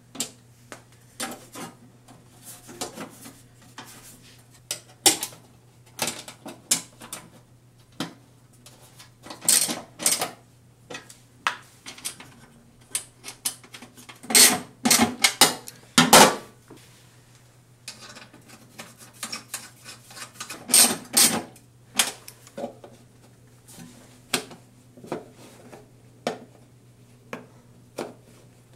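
Irregular metallic clicks and clanks from a ratchet wrench on bolts and the sheet-steel case and covers of a Toyota Prius hybrid battery pack being handled. The loudest clanks come in clusters about ten, fifteen and twenty-one seconds in, over a low steady hum.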